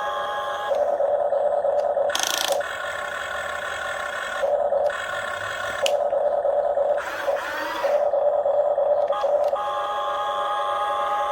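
Electric motors of a Huina RC grapple excavator whining steadily, the pitch switching back and forth every second or two as different functions start and stop, with a brief scrape about two seconds in.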